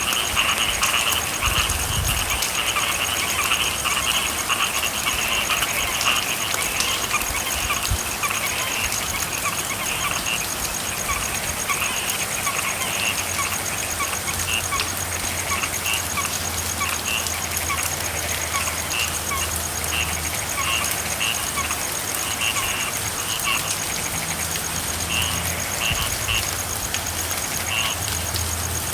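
Steady rain hiss with a chorus of frogs calling: dense, overlapping calls at first that thin out to scattered single calls later on. A faint low hum comes in about halfway through.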